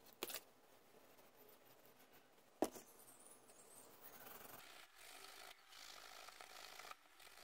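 Steel wool scrubbing a small ornate metal corner fitting: a faint rasp in short strokes during the second half. Before it, a single sharp tap.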